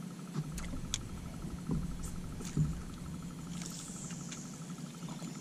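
Quiet handling sounds on a bass boat as an angler works a rod and reel. A few light clicks and taps sound over a faint steady low hum.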